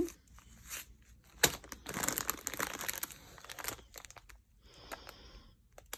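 Small plastic baggies of diamond-painting drills crinkling as they are handled. There is a sharp click about one and a half seconds in.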